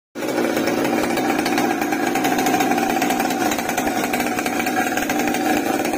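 Makita MT5800 58 cc two-stroke chainsaw engine, mounted in an RC boat, running at a steady speed.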